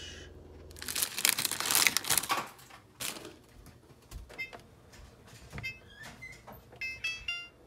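A person shushing, a loud hiss lasting about a second and a half, followed by a string of short electronic beeps from an oven's keypad as its buttons are pressed to set the temperature and timer.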